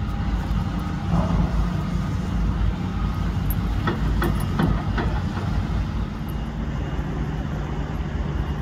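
Steady low engine rumble, with a few sharp clicks around the middle.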